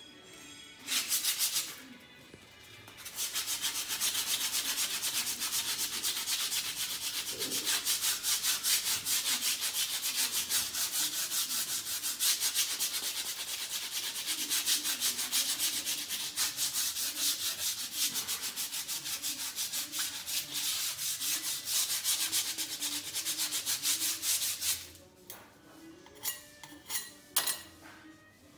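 Rapid back-and-forth rubbing by hand on the lower part of a wall, a dense scratchy scrubbing like sanding. A short burst comes about a second in, then steady continuous strokes start about three seconds in and stop near the end.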